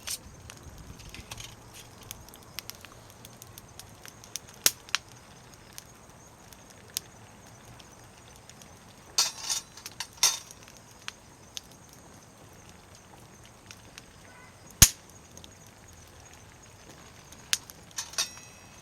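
Wood campfire crackling: sparse, irregular sharp pops and clicks, with short runs of crackle about nine to ten seconds in and a single louder crack about fifteen seconds in.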